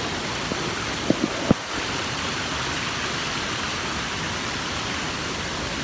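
Rushing stream of white water pouring over rocks below a small waterfall, a steady even rush. A few short sharp knocks sound about a second in.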